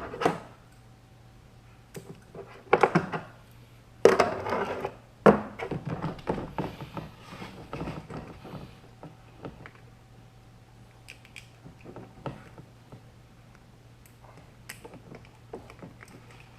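Handling noises: a few short bursts of rustling and scraping in the first half, then scattered light clicks and taps, over a steady low hum.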